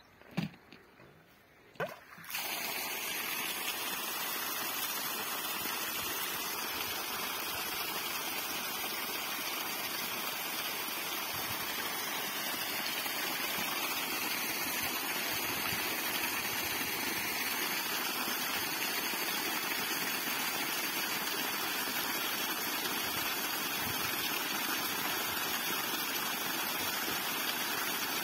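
Water gushing from a borewell's bent outlet pipe and splashing onto the ground: the flow starts suddenly about two seconds in, after two short knocks, then runs steadily.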